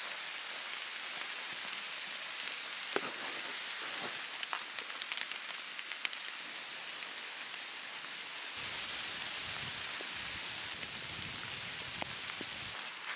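Steady rain falling on a beech forest: an even hiss on the leaves with scattered single drop ticks. A low rumble joins in for a few seconds past the middle.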